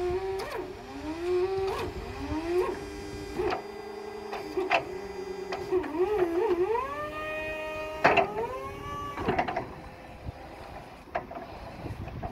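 Toyota 6FBRE12 battery-electric reach truck's electric motors whining, the pitch rising and falling again and again as it drives and manoeuvres, with a few sharp clicks. The whine holds a high steady pitch for a couple of seconds past the middle, then drops suddenly with a click.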